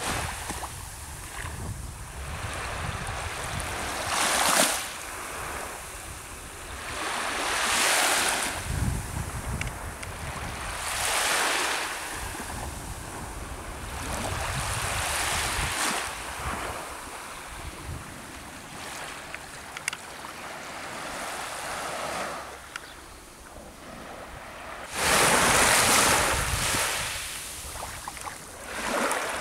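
Small waves breaking and washing up a sandy shore, surging every three or four seconds with the loudest wash a few seconds before the end, while wind rumbles on the microphone.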